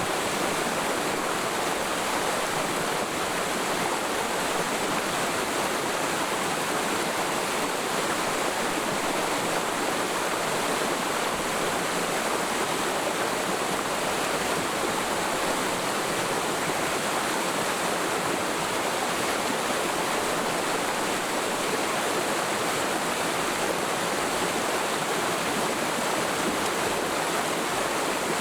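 Mountain stream in a forest valley flowing over rocks: a steady, unbroken rush of water.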